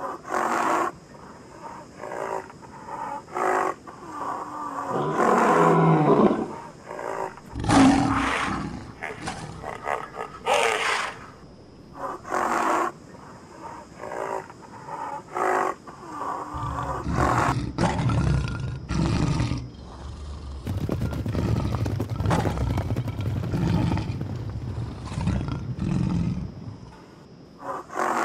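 Lions roaring and growling in a string of short separate bursts, turning into a longer, more continuous stretch of growling with a deeper low end a little past halfway.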